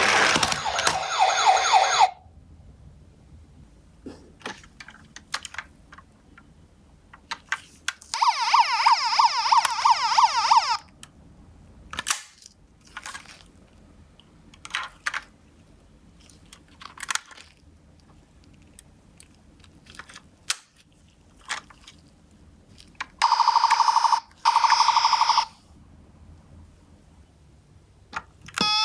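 Electronic sirens of toy ambulance minicars sounding in short bursts: a loud one that cuts off about two seconds in, a warbling one of about three seconds in the middle, and two brief ones near the end. Scattered small clicks and taps fill the quiet between.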